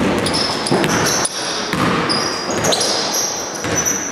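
Basketball shoes squeaking on a hardwood court as players run, many short high-pitched chirps from about half a second in, with the ball bouncing and footfalls knocking in between.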